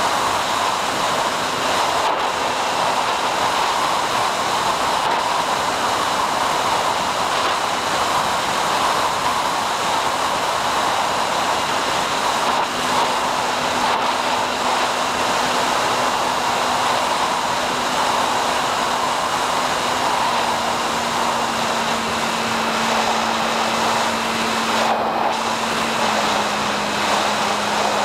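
Wind rush and the hum of the SkyHunter's electric motor and propeller, picked up by the plane's onboard microphone. The hum drops in pitch twice near the end as the throttle comes back for a low approach.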